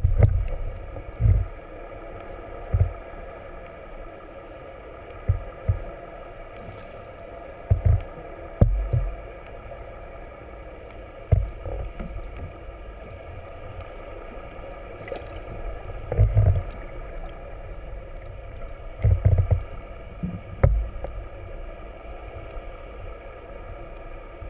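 Sound picked up by a camera held underwater: a steady hum with several fixed tones, broken by irregular low thumps as water buffets the submerged camera.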